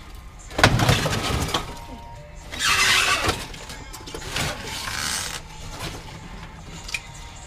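Background music over a few loud crashing and breaking sounds: a hot tub being broken apart. The loudest crash comes about half a second in, with another near the middle.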